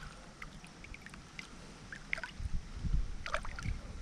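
Small splashes and drips of water around a landing net held in the river at the bank, with a low rumble on the microphone from about halfway through.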